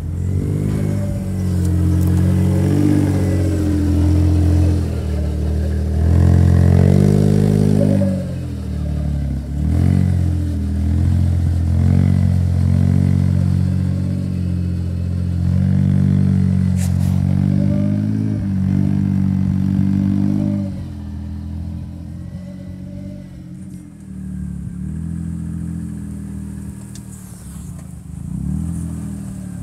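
Engine sound of a John Deere Gator 4x4 utility vehicle revving up and down repeatedly as it drives over rough grass. It gets quieter about two-thirds of the way through.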